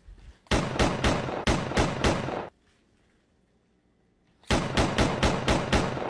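Machine-gun fire sound effect in two bursts of rapid shots, about four a second, separated by a couple of seconds of silence.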